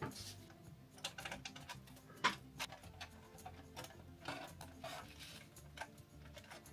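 Light clicks and knocks of hard plastic as an RC truck cab and its small parts are handled and fitted by hand, irregular, with one sharper knock about two seconds in.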